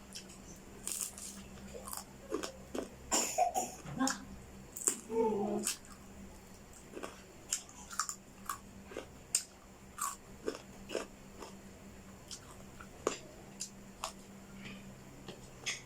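Close-up eating of air-fried whole chicken: irregular sharp crunches and chewing clicks as bites are taken and chewed, with a brief pitched voiced sound about five seconds in.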